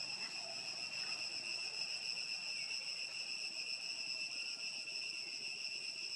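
Steady chorus of insects: a constant high-pitched drone in several layers.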